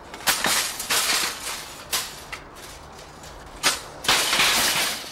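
Shopping cart being handled: several sharp knocks and two longer stretches of rattling, one about a second in and one near the end.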